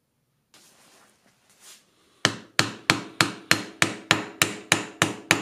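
Wooden mallet striking a steel sleeve, driving the idler shaft out of a mini mill's gearbox head. The strikes start about two seconds in and come evenly, about three a second, after a short stretch of faint handling noise.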